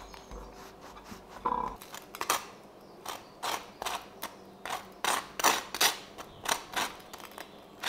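Table knife scraping spread onto a bagel on a plate: a run of short scraping strokes, about three a second, starting about two seconds in.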